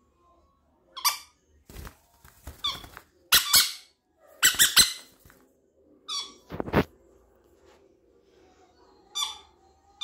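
Green-cheeked conures giving a string of short, sharp squawks, some singly and some in quick runs of two or three. A dull thump comes about two-thirds of the way through.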